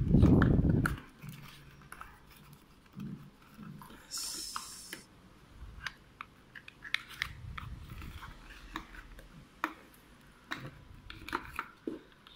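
Hands working zip ties loose from plastic and cardboard headphone packaging: scattered clicks, crinkles and scrapes. There is a loud low bump of handling at the start and a short high hiss about four seconds in.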